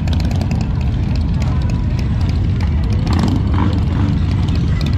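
Motorcycle engines running, a steady deep sound with the fast pulsing of their firing, with faint voices mixed in about three seconds in.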